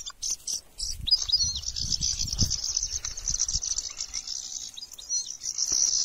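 A steady, high insect chorus with a few short bird chirps over it, twice. Underneath are low, irregular crunching steps on dry, stony ground.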